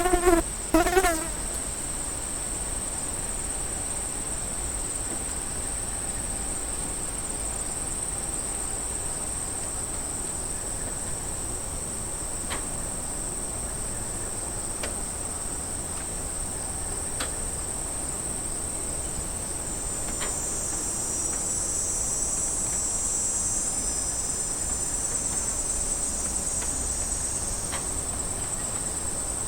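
Cicadas buzzing: a steady, high-pitched drone that swells louder and fuller about two-thirds of the way through. A few short pitched calls sound in the first second.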